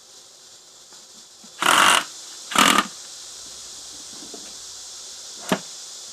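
Insects calling in a steady high drone throughout. Over it come two loud, short, rasping bursts about a second and a half and two and a half seconds in, then a single sharp click near the end.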